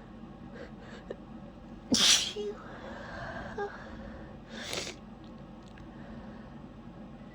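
A person sneezes once, sharply and loudly, about two seconds in. A shorter breathy sniff follows a couple of seconds later.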